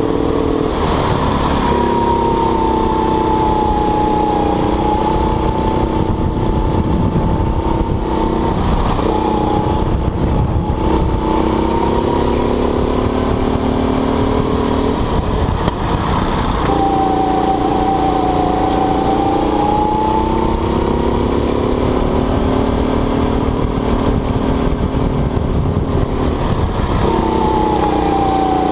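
Go-kart engine heard from on board while lapping. Its pitch holds high and climbs slowly along the straights, and it drops briefly three times, about a third of the way in, past halfway and near the end, as the kart lifts off for corners and then picks up again. A steady rumble runs beneath it.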